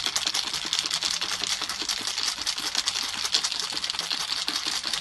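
Ice cubes rattling inside a lidded glass jam jar that is being shaken hard by hand as a cocktail shaker: a fast, continuous clatter of many small knocks.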